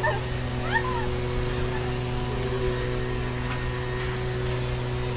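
A steady low hum with a few constant tones running under an even background hiss, with a few short rising voice-like sounds in the first second.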